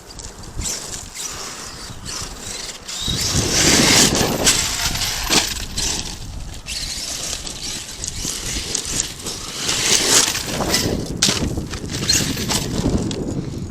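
Arrma Kraton 8S radio-controlled truck driving over loose dirt, its electric motor and tyres swelling and fading with the throttle, with scattered sharp knocks as it hits the ground.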